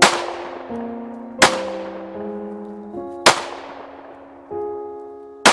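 Pistol shots fired one at a time, four in all, about a second and a half to two seconds apart, each with a short ringing tail. Background music of held notes plays underneath.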